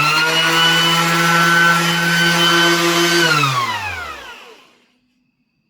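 Bauer 20 V cordless 5-inch random orbital sander running steadily at full speed with a high motor whine, then switched off about three seconds in and spinning down, its pitch falling until it stops.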